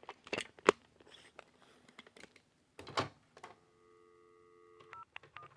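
Ademco alarm keypad being operated: sharp key clicks and a knock, then a steady chord of several tones for about a second and a half, then a run of short beeps near the end.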